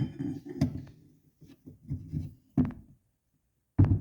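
A few irregular metallic knocks and clanks from a wrench and a flywheel puller as the puller is threaded into the flywheel of a Honda TRX250R engine.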